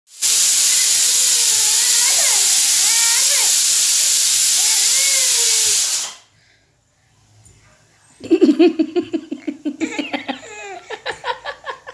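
A loud steady hiss that cuts off abruptly about six seconds in. After a short silence, a high-pitched voice in rapid repeated syllables, like laughing or babbling.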